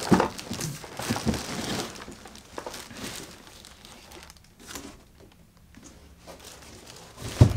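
Plastic film crinkling and a cardboard box rustling as the box is pulled up off a plastic-wrapped baby stroller. A thump comes near the end.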